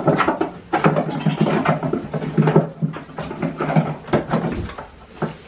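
Goat kids jostling at their mother on a wooden milking stand to nurse, with a dense run of short irregular knocks and scuffs from hooves on the boards.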